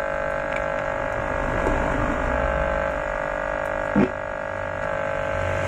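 Speaker of a homemade miniature sound-system amplifier giving out a steady electrical hum, a buzzing tone with many overtones, while a loose cable's plug is being refitted by hand. A short loud pop about four seconds in.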